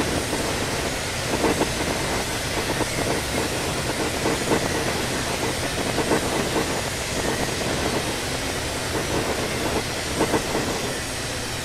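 CSX intermodal freight train rolling past, its cars' wheels clacking over rail joints in uneven clusters of knocks over a steady running noise. The sound eases slightly near the end.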